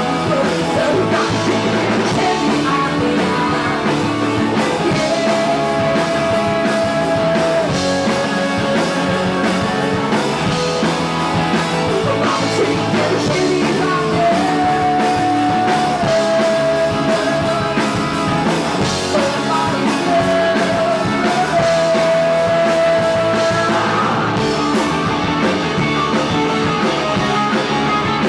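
Rock band playing live, with electric guitar, bass and drums under a lead melody that holds long notes.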